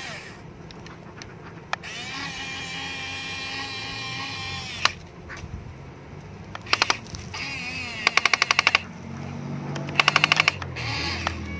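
Electric motors of a Huina remote-control toy excavator whining as the arm and boom move. Three loud bursts of rapid clicking come in the second half, about ten clicks a second, each lasting under a second.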